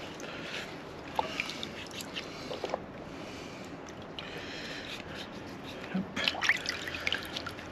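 Water sloshing and trickling in a basin as fig cuttings are rubbed and rinsed by hand, with a few light clicks and a louder spell of splashing about six seconds in.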